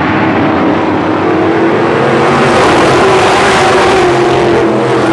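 A pack of race cars running together down the straight of an oval track, their engines at speed, growing louder as they pass close about halfway through, the engine notes dropping a little as they go by.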